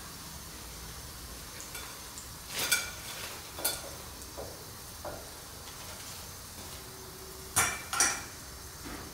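Oil sizzling steadily in a wok of deep-fried chicken drumsticks, with metal knocks and clinks as a wire skimmer scoops the pieces out and taps against the wok and a ceramic dish: two single knocks a few seconds in, then the loudest pair close together near the end.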